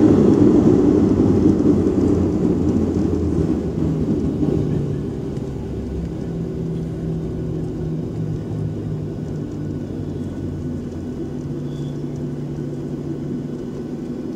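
Airliner jet engine and runway rumble heard from inside the cabin just after touchdown, as the plane slows down. The noise fades over the first five seconds, then settles into a steady low drone with a faint hum.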